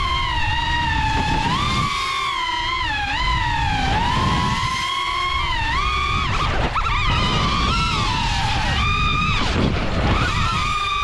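FPV quadcopter (DJI Avata rebuilt with Axisflying 3.5-inch motors and propellers) whining in flight. The pitch swoops up and down constantly with throttle through fast turns, over a steady rush of wind.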